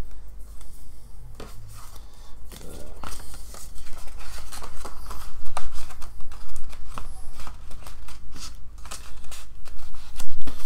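Paper and card rustling and scraping as a printed card is slid into a paper envelope, with irregular light clicks and taps from handling a clear plastic disc case.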